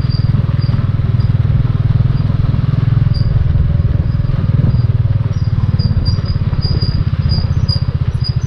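Motorcycle engine running steadily while riding, a loud low rumble with a fast, even pulse. Short high chirps repeat faintly above it, more often in the second half.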